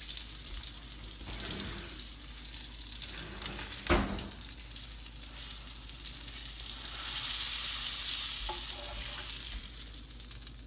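A beef burger patty sizzling in grease in an electric skillet, with a metal spatula scraping and working it. There is one sharp knock about four seconds in, and the sizzle grows louder for a couple of seconds past the middle.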